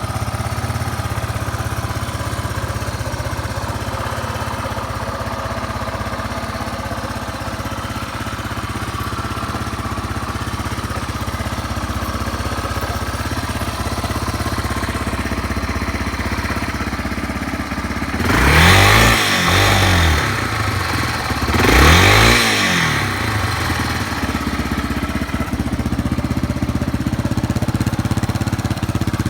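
Yamaha Serow 225's air-cooled single-cylinder four-stroke engine idling steadily, blipped twice about three seconds apart, each rev rising and dropping back to idle. The seller calls it free of abnormal noise.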